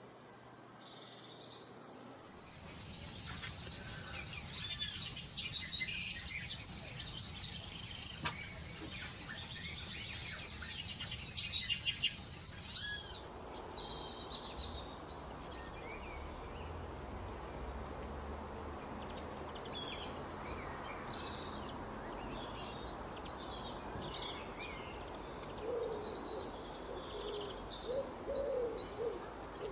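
Wild birds calling: loud, sweeping high chirps over a steady high tone, which cut off suddenly about halfway for softer, scattered chirps over a steady hiss. Low, repeated hooting calls come in near the end.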